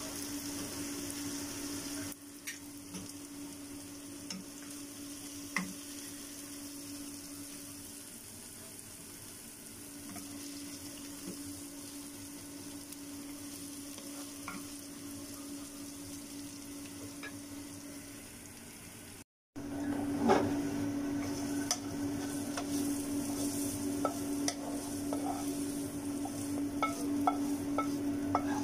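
Diced onion, carrot and barbecue pork sizzling in a nonstick frying pan while a wooden spatula stirs them, with occasional light taps over a steady hum. After a short break about two-thirds through, the sizzle is louder and the spatula clicks and scrapes against the pan as the food is pushed out onto a plate.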